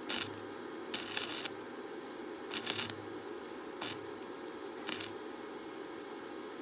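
Electric arc welding in short bursts: five crackling sizzles with a low hum, each a quarter to half a second long, about a second apart, as short stitch or tack welds are laid.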